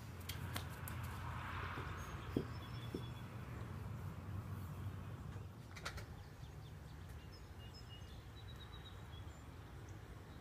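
Quiet outdoor ambience: faint, short bird chirps over a low steady rumble, with a couple of light clicks, one about six seconds in.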